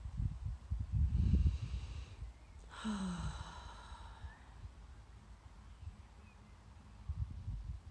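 Low buffeting on the microphone, then about three seconds in a woman's long sigh that falls in pitch.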